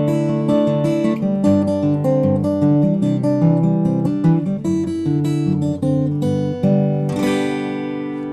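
Acoustic guitar strummed in a steady rhythm through a chord progression, ending on a final chord about seven seconds in that is left to ring and fade.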